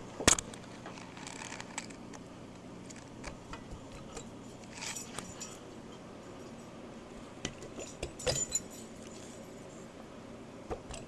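Light metallic clicks and clinks as the aluminium cylinder block of a Honda CB350F four-cylinder engine is worked down over the pistons and the piston rings are pressed into the bores. There is one sharp click near the start and clusters of clinks about halfway and later on.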